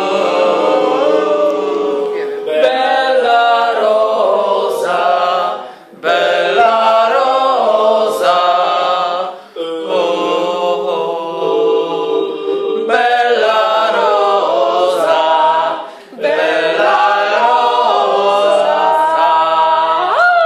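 A small group of voices, a woman and men, singing a cappella together in phrases a few seconds long, with brief breaks for breath between phrases.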